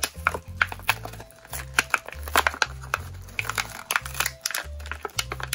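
A Hot Wheels cardboard-and-plastic blister card being worked open by hand: crinkling plastic and sharp tearing clicks of card. Background music with a steady bass line plays underneath.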